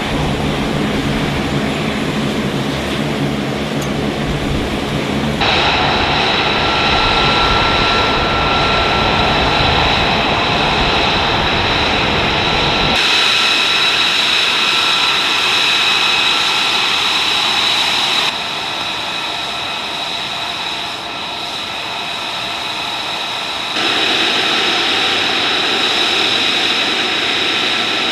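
F-35B's jet engine running at ground idle: a steady high-pitched whine over a loud rushing noise, changing abruptly a few times between shots. In the first few seconds a deeper, droning engine sound is heard instead.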